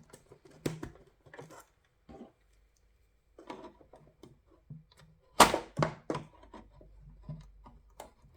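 Scattered clicks and taps of hands working plastic parts inside a halogen headlight housing while removing the daytime running light bulb, with the sharpest, loudest click about five and a half seconds in.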